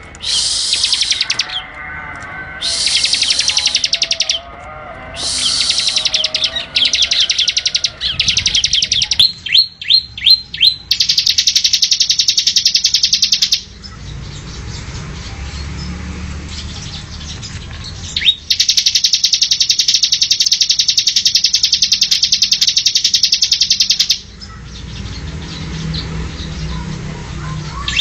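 A prinia (ciblek) giving its rapid machine-gun-like trill in bursts of one to five seconds, with a few quick falling whistles about ten seconds in and two quieter pauses. It is the kind of loud, dense song used as a lure call to draw in wild birds.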